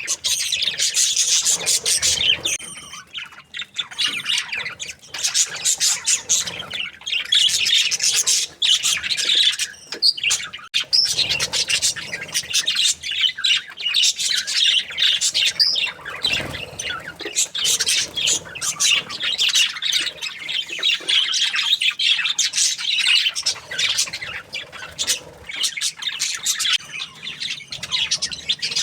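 Budgerigars chirping and chattering together, a dense unbroken stream of rapid high twittering calls with harsher squawks mixed in.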